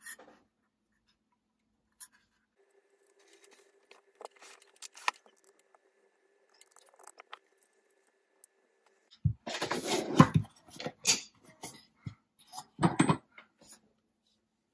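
Hands handling the parts of a Proxxon MF70 milling head and a steel 1-2-3 block. There are a few faint clicks at first, then loud clattering, clicking and scraping of metal parts from about two-thirds of the way in, with another burst near the end.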